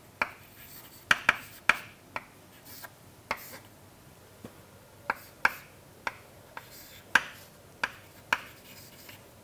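Chalk writing on a chalkboard: about fifteen sharp, irregular taps of the chalk striking the board, some trailing into short scrapes.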